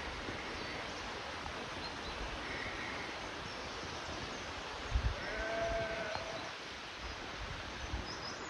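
A sheep bleats once, a drawn-out baa about five seconds in, over a steady outdoor background hiss. A low thump comes just before the bleat.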